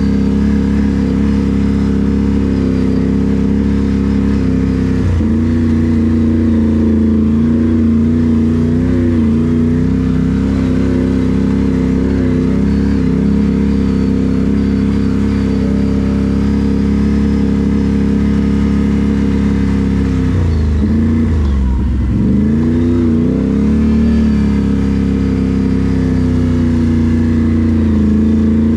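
Can-Am Renegade 1000 ATV's V-twin engine running steadily under throttle. The engine note drops suddenly about five seconds in, then dips and climbs back again around twenty to twenty-two seconds in, as the throttle is eased off and opened up.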